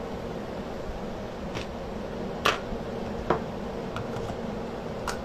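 A few light clicks and knocks of small paint jars being handled and picked up on a craft table, the sharpest about halfway through, over a steady fan hum.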